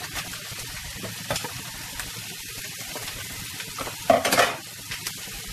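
Chopped garlic and onion sizzling in oil in a nonstick frying pan, with light scraping of a wooden spatula. About four seconds in there is a louder, brief scrape and sizzle as chopped green vegetables are pushed off a plate into the hot pan.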